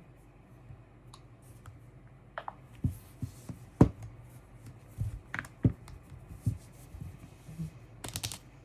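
Handling noise: an irregular string of clicks and light knocks, the sharpest about four seconds in, with a quick cluster of clicks near the end.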